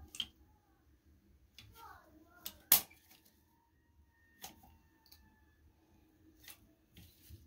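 Manual caulking gun clicking as its trigger is squeezed to push out silicone: several sharp, separate clicks spread out, the loudest just under three seconds in.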